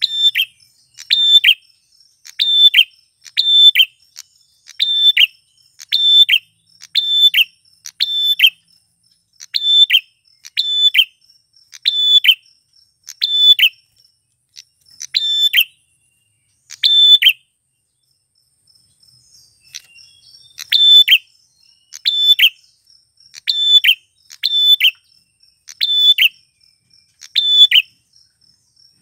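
Male prenjak klawu, a prinia, calling loudly. It gives a run of short, sharp, down-curving chirps at about one a second, pauses for a few seconds midway with only two calls, then starts the run again. A faint, steady, high insect-like trill goes on underneath.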